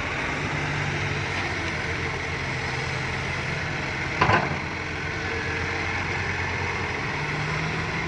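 Diesel engine of a Fiat-Hitachi 150.3 excavator running steadily as the machine works, with a short, loud clatter about halfway through.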